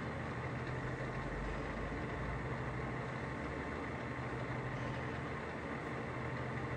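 IMA BL-1340 tool room lathe running steadily with its longitudinal power feed engaged, the carriage travelling along the bed.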